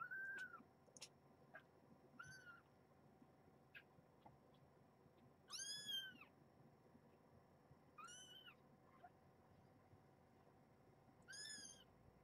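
Kitten mewing: five high, arched mews a couple of seconds apart, the one about halfway through the longest and loudest.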